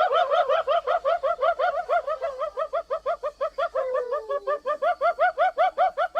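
Spotted hyena giggling: a fast run of rising-and-falling yelping notes, about six a second, with a drawn-out falling call beneath them about four seconds in.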